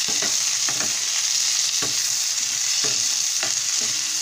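Chopped onions sizzling in hot oil in a stainless steel pan, with a spatula stirring and scraping the pan every second or so.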